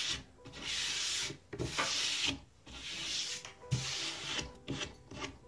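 A bare palm rubbing water-diluted gel stain into sanded bare wood, in about five rubbing strokes of up to a second each.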